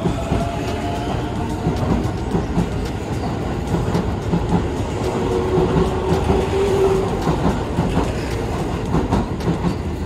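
Keio 7000 series electric train moving along the track, its wheels clacking repeatedly over the rail joints, with a brief steady tone about halfway through.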